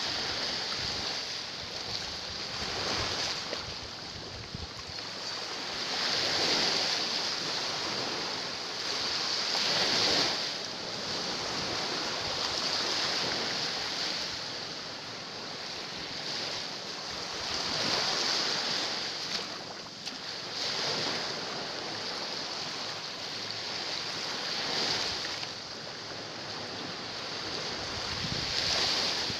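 Sea waves washing in and splashing against shoreline rocks, the rush swelling and easing every few seconds.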